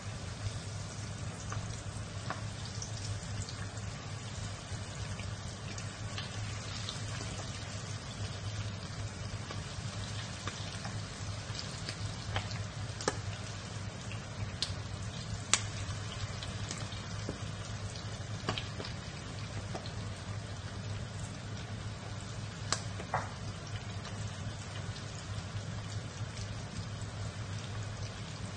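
Oil sizzling steadily as kunafa-noodle-wrapped prawn sticks deep-fry in a wok, with scattered sharp pops and crackles throughout.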